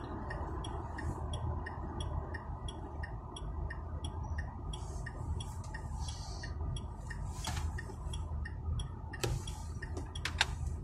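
Turn-signal indicator ticking evenly inside a Smart ForTwo 453's cabin, about three ticks a second, over the steady low hum of the car under way. The ticking dies away about halfway, and a couple of sharp clicks come near the end.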